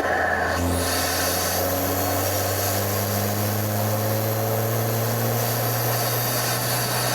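BMW N20 2.0-litre turbocharged four-cylinder engine running under light load, its drone rising slowly and steadily in pitch as the car gathers speed.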